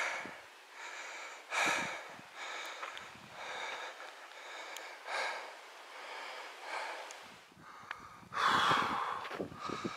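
Heavy breathing of a hiker out of breath from walking, close to the microphone, about one breath a second. A louder rush of noise comes in about eight seconds in.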